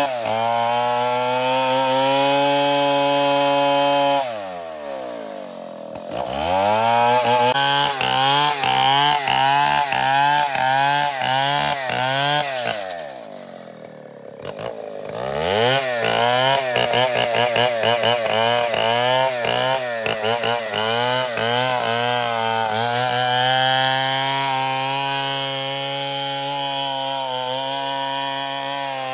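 STIHL 070 two-stroke chainsaw ripping a merbau log lengthwise. It holds steady high revs, drops to idle about four seconds in, then revs up and down about twice a second. It falls back to idle briefly halfway through, then revs in pulses again and settles to a steadier run near the end.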